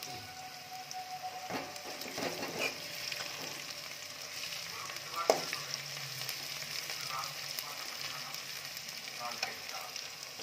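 Sliced onions sizzling in hot oil in a metal kadai, stirred with a steel spatula that scrapes and clicks against the pan, with one sharp knock about five seconds in.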